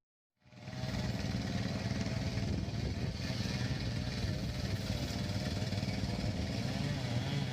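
A small engine running steadily at a wavering speed, after a moment of dead silence at the very start.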